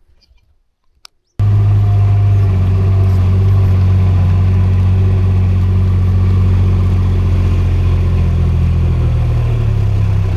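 An engine running steadily at a constant speed with a low, even hum. It cuts in abruptly about a second and a half in, after near silence.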